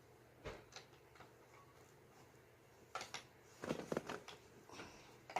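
Plastic Lego bricks clicking and clattering as they are handled and pressed together: a few scattered clicks, then a short burst of clatter about three to four seconds in.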